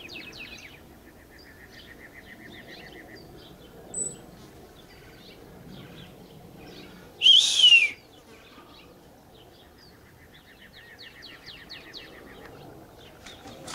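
Wild songbirds: a fast, dry trill twice, with scattered short chirps between. One loud, brief sound with a sliding pitch about seven seconds in.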